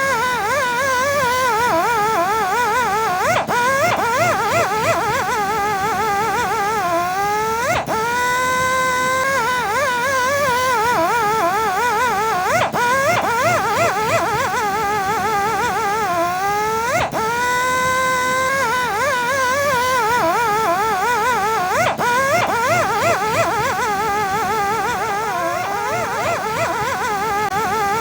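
Electric rotary buffing and polishing machine whining under load, its pitch wavering rapidly as it is pressed against the work. Every four to five seconds the whine sweeps sharply up in pitch as the pad spins back up.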